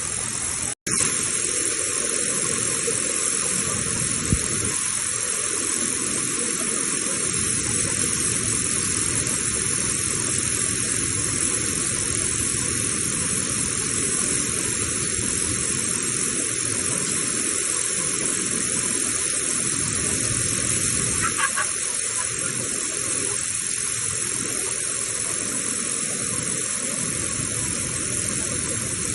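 Steady rushing noise with no rhythm or pitch, broken by a short dropout about a second in.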